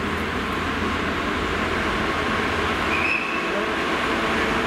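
Class 66 diesel-electric freight locomotive approaching at the head of a train of hopper wagons, its two-stroke V12 diesel engine running with a steady low hum under the rumble of the train.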